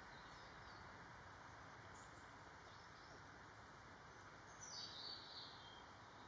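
Faint outdoor ambience: a steady low hiss with small birds calling faintly now and then, and a brief, louder run of high chirps about four and a half seconds in.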